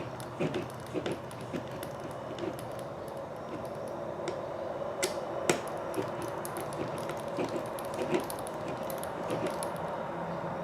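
Scattered light clicks and taps of small plastic and metal RC kit parts and a tool being handled during assembly, with two sharper clicks about five seconds in, over a steady low hum.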